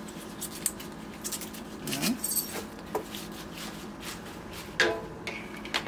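Curly kale leaves being torn from their stems by gloved hands on a wooden cutting board: scattered short, crisp rustles and snaps, the loudest near the end, over a faint steady hum.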